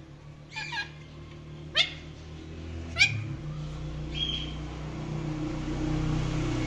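Indian ringneck parakeet giving four short, sharp calls about a second apart, each a quick downward sweep, over a low steady hum.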